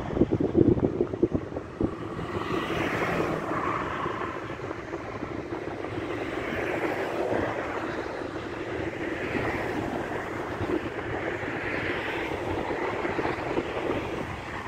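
Wind buffeting the microphone in gusts for the first couple of seconds, then a steady rushing noise.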